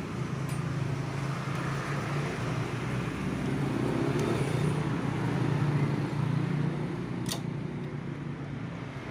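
A motor vehicle running and passing on a nearby road, its engine hum growing louder in the middle and then fading. Near the end there is one sharp click.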